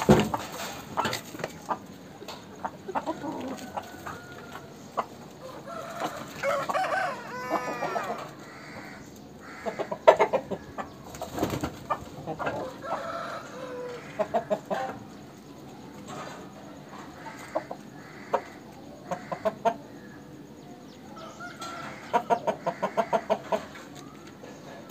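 Aseel roosters clucking in short runs of rapid pulses, with a crow about seven seconds in.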